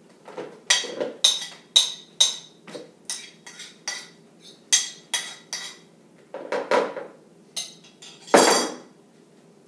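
A utensil tapping and scraping against a bowl as butter is knocked off it into a mixing bowl: a quick run of sharp, ringing taps about two a second. Near the end comes a louder, longer clatter as the bowl is set down.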